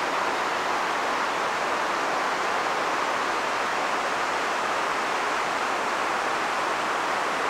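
Shell Falls, a waterfall on Shell Creek running high with snowmelt, heard as a steady, even rush of falling water.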